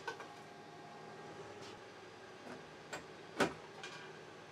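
Purged filament pieces ejected from a QIDI Plus 4 3D printer landing in a 3D-printed plastic purge bin, heard as a few sharp ticks, the loudest about three and a half seconds in, over the printer's steady fan hum.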